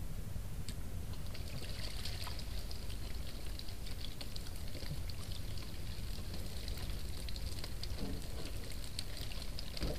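Water splashing and trickling as a wire-mesh basket is worked at the river's surface beside a boat, with many small splashes and drips, over a steady low rumble.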